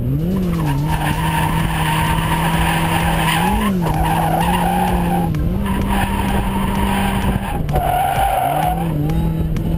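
Toyota Corolla AE86 drifting: its engine is held at high revs, with short rises and dips in pitch a few times and a drop about three-quarters through, over continuous tyre squeal from the sliding tyres.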